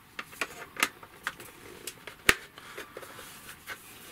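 A plastic stand being fitted onto the back of a small portable TV: a few light plastic clicks and handling knocks, with one sharp snap about two seconds in.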